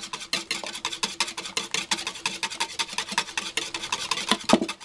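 Wire whisk beating egg yolk and oil into mayonnaise in a bowl, quick even scraping strokes against the bowl, whisked in figure-eights as the oil is poured in and the emulsion starts to thicken.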